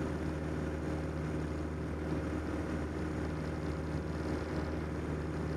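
1946 Piper J-3 Cub's piston engine and propeller droning steadily in flight, heard from inside the small cabin.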